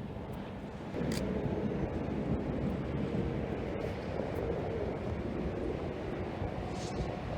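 Storm wind buffeting the microphone, a steady rushing noise that gets louder about a second in.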